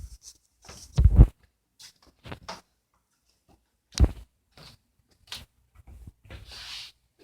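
A few thuds and knocks, the loudest a heavy low one about a second in and a sharp one about four seconds in, with fainter knocks and a soft rustling hiss near the end.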